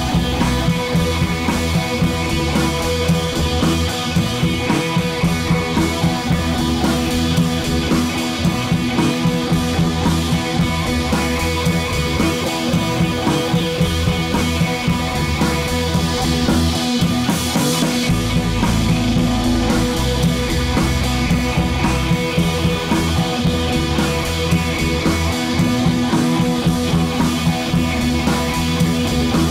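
Background music: a rock track with guitar and drum kit and a steady beat.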